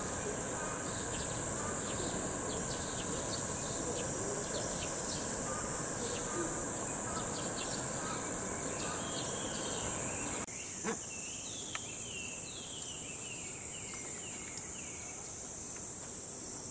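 A steady, high-pitched drone of insects, with a haze of outdoor noise in the first part. The level drops suddenly about ten seconds in, and a run of short falling chirps follows.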